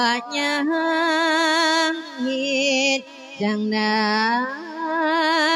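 Thai Buddhist verse sermon (thet klon) sung by a single voice in long held notes with heavy vibrato, gliding up and down between pitches, with brief pauses for breath about two and three seconds in.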